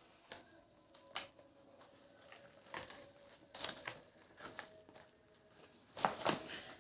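Packaging being handled while unboxing a keyboard-and-mouse combo: scattered faint crinkles, rustles and light taps, with a longer, louder rustle near the end.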